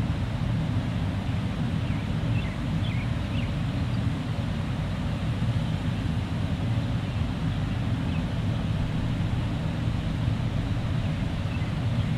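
Steady low outdoor rumble, with a few faint high chirps in the first few seconds.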